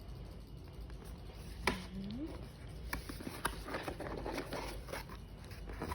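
Handling noise from a product box being picked up and turned over: a sharp tap, then a run of small clicks and rustles.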